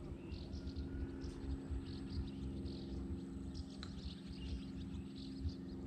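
Small birds chirping and twittering over a steady low hum and a fluttering low rumble.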